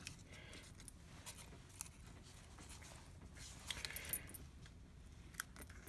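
Faint rustling and light taps of cut paper and card pieces being picked up and set down on a tabletop, with a slightly louder rustle about four seconds in.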